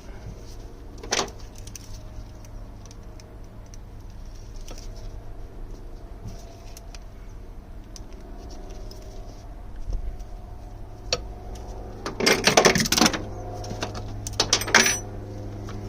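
Metal tools or parts clinking and rattling: a sharp clink just after a second in, then a loud clatter about twelve seconds in and another near the end, over a steady low hum.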